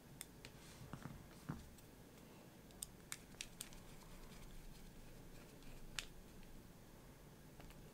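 Faint, scattered small clicks and taps as a tiny screw is set and driven with a precision screwdriver into the plastic hop-up chamber of an airsoft Glock 19.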